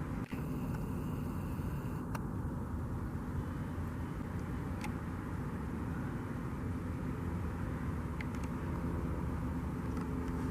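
Steady low rumble of vehicle noise, with a few faint clicks.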